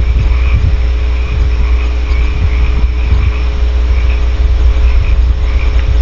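Steady low hum and rumble from a nest-box camera's microphone system, with a faint, irregularly pulsing high chorus above it.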